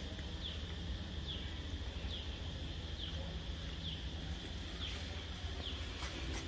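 A faint high bird chirp, falling in pitch, repeated evenly about once a second over a low steady background hum.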